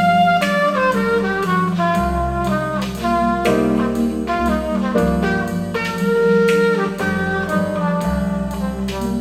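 Jazz-funk instrumental music with saxophone and brass melody lines over a steady bass and drums, played through YG Acoustics Vantage 3 hi-fi loudspeakers and picked up in the listening room.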